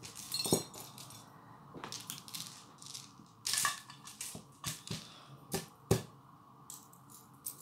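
Bead necklaces and gold-plated costume jewellery being picked up and set down on a cloth-covered table: irregular clicking and rattling of beads and metal pieces, with a few sharper clacks around the middle.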